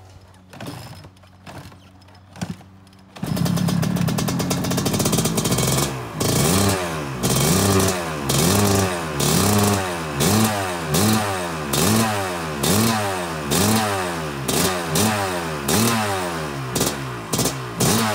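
Kawasaki KX250 two-stroke motocross engine starting about three seconds in, after a few faint knocks, then revved over and over, its pitch rising and falling about one and a half times a second. The freshly rebuilt engine is loaded up with assembly lube.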